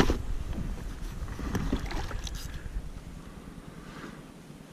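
Wind rumbling on the microphone aboard a plastic kayak, with a few light knocks and clicks of gear against the hull as a landing net is handled; the rumble dies down about three seconds in.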